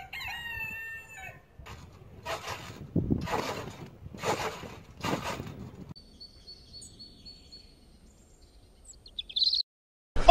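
A bird-like crowing call in stepped tones lasting about a second and a half, then a few short noisy bumps, then a faint high whistle held for a few seconds that ends in quick chirps.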